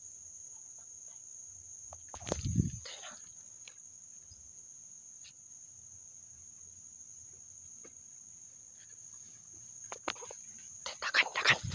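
Steady high-pitched insect buzz from the undergrowth. A low thump comes about two and a half seconds in, and vegetation rustles and crackles near the end as someone pushes through the ferns.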